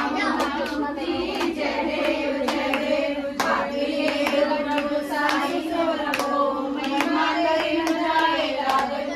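Kirtan: voices singing a devotional bhajan to steady hand clapping, about two to three claps a second.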